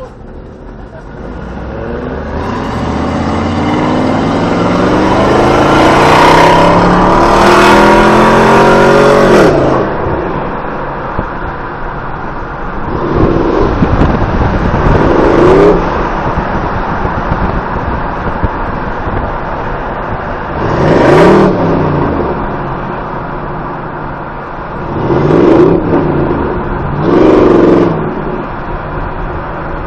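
V8 engine accelerating hard, its pitch climbing steadily for about seven seconds before dropping off, then several short bursts of revving, heard from inside a car's cabin.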